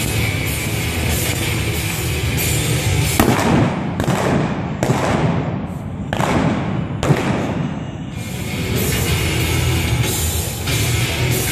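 Five rifle shots fired from a galloping horse, spaced roughly a second apart between about three and seven seconds in, each with a short echo, over loud rock music playing throughout.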